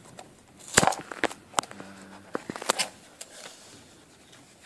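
Cardboard booster box being pulled open from the bottom: a string of sharp crackles and knocks, the loudest about a second in.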